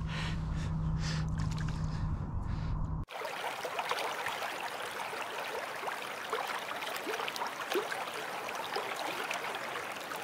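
A low rumble with a steady hum for about three seconds, then a sudden cut to continuous trickling, babbling water with small gurgles.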